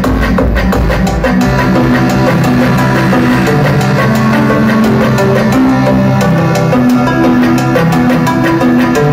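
Loud electronic dance music from a DJ set in a club. About a second and a half in, the heavy kick drum and bass drop out, leaving sustained synth notes over lighter percussion.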